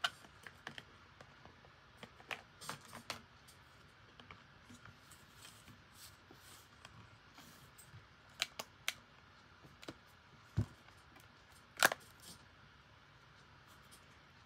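Hard plastic phone cases and packaging being handled on a desk: scattered light clicks and taps with quiet gaps between, one duller knock a little after ten seconds in, and the sharpest click near twelve seconds in.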